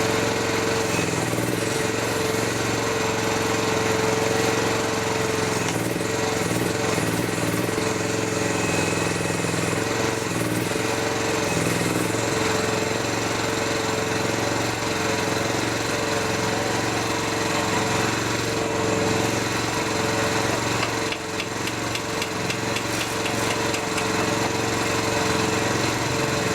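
Mini excavator's engine running steadily, with a held tone that wavers slightly in pitch.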